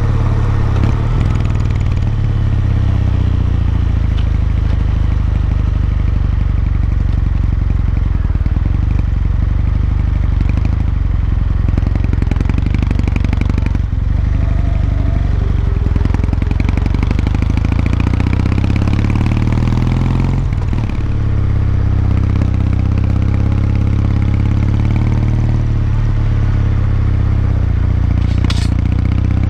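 Kawasaki MEGURO K3's air-cooled parallel-twin engine running while the bike is ridden, with wind noise. The engine note rises and falls gently with the throttle.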